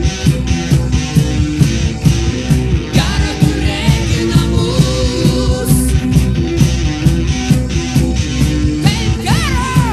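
Live rock band recording playing an instrumental passage: drums keep a steady beat under bass guitar and keyboards, with a lead line that bends in pitch about three seconds in and again near the end.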